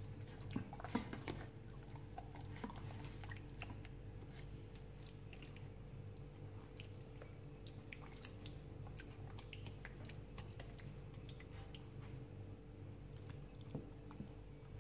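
Wet squishing and small clicks of hands working a thick marinade over raw chicken pieces in a stainless steel bowl, with a few sharper clicks about a second in. A steady low hum runs underneath.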